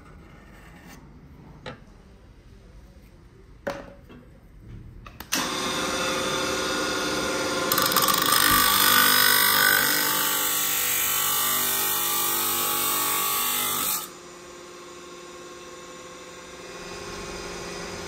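Electric motor fitted with a thin abrasive cut-off disc, grinding a steel knife blank. After a few light knocks, a loud grinding starts about five seconds in and gets louder and harsher from about eight seconds while the disc cuts into the steel. It stops abruptly near fourteen seconds, leaving a quieter steady hum.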